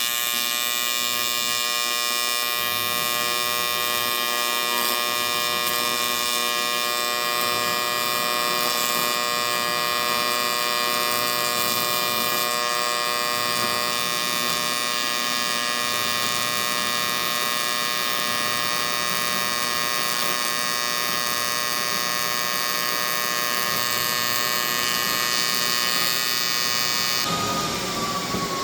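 AC TIG welding arc on aluminum: a steady, loud electric buzz with many evenly spaced overtones that cuts off suddenly near the end, when the arc is broken. A single whine falling in pitch follows.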